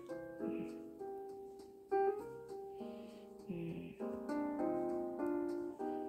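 Background piano music: a slow melody of held notes.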